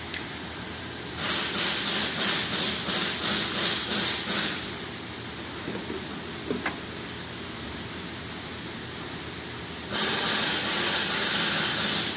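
Loud hissing blasts of a pressurised jet in two runs: the first begins about a second in and pulses about three times a second for some three seconds, and the second starts near the end and holds steadier. A short click sounds in between.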